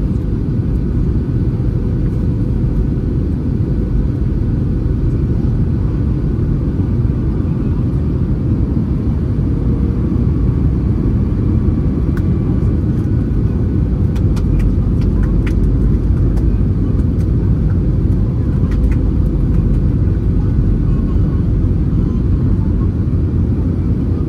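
Airbus A320-200 cabin noise heard from a window seat over the wing during the descent: a steady, loud low rumble of engines and airflow, with a few faint ticks about halfway through.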